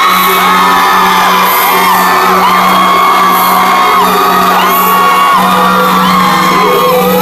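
Live music played loud over a sound system in a large hall: a steady low held note under a high melody that slides up and down between held notes.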